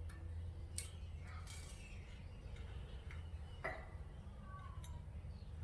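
A few sharp, separate clicks and clinks of small metal mower parts being handled during reassembly, over a steady low hum.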